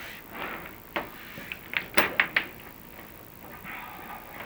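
Inspection camera and its cable knocking and scraping against the clay tiles inside a chimney flue as it is lowered: a quick run of sharp clicks and knocks, the loudest about two seconds in, with fainter scraping before and after.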